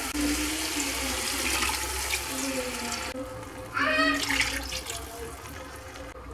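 Water poured from a bowl into a stainless steel pot of frying chicken and onions, splashing and rushing: the water is being added to start the broth. One pour stops about three seconds in, and a second follows a moment later and tails off.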